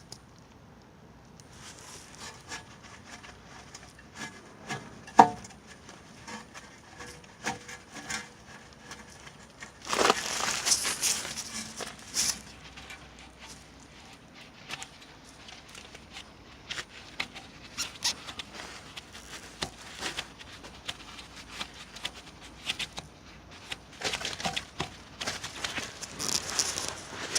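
Scattered clicks and knocks of tools and parts being handled during work on a car's rear brake, with one sharp knock about five seconds in and two louder rushing noises of a couple of seconds each, about ten seconds in and near the end.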